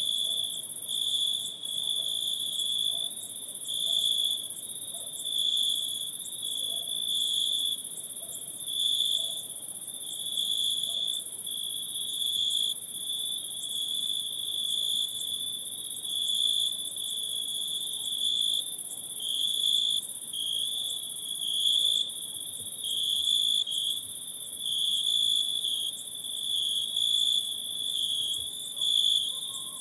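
Night-time insect chorus: a steady high-pitched trill with a second, even higher layer above it, swelling and fading in waves about every one and a half to two seconds.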